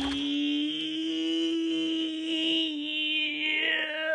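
A voice holding one long sung note at a steady pitch.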